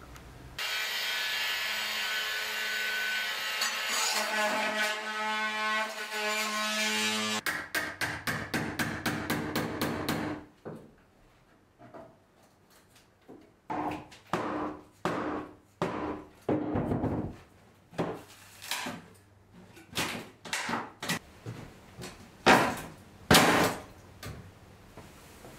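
Tool work on wood and fibreglass in a boat's bilge. A power tool runs with a steady high whine for about seven seconds and cuts off suddenly. A fast run of strokes follows, then after a short pause a series of separate scraping and knocking strokes, about one a second.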